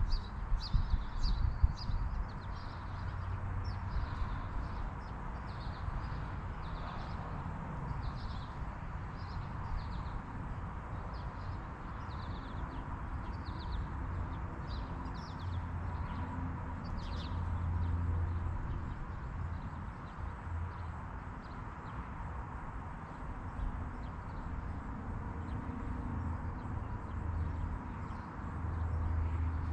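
A bird chirping over and over, one or two short high chirps a second, stopping about two-thirds of the way through, over a steady low rumble.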